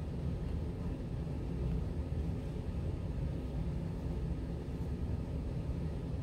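Steady low rumbling noise, even and unchanging, with no distinct events.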